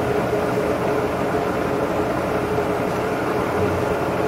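Sharp VH3 vertical-horizontal milling machine running steadily just after being switched on: an even mechanical hum with one constant whining tone from its motor and drive.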